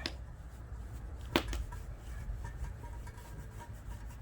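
Cloth and hand handling a hot cast-iron pot lid being wiped with oil during seasoning. Light clicks and one sharp knock about a second and a half in, over a steady low rumble.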